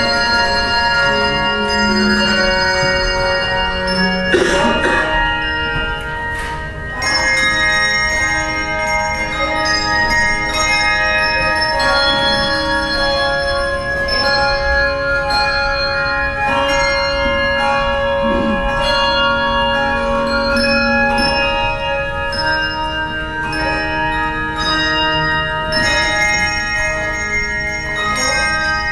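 Handbell choir playing a piece: many bells struck together in chords, their notes ringing on and overlapping as new ones are rung.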